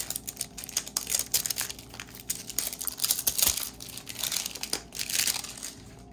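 Plastic wrapping being crinkled and pulled off a Mini Brands capsule ball by hand, in irregular bursts of crackling.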